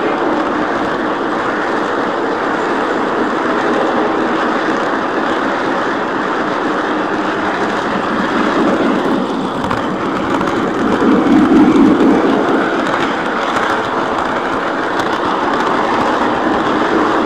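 Lionel O scale model train rolling along its track, heard from a camera riding on the train: a steady running noise of wheels and drive that swells for a moment just past the middle.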